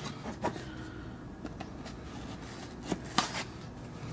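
A white cardboard phone box being handled: a few light clicks and scrapes, spread out, as a knife slits its seal tabs and the box is tipped open.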